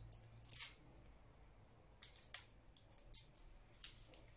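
A few short, sharp clicks and crinkles as a small spice container with a plastic cap is worked open by hand.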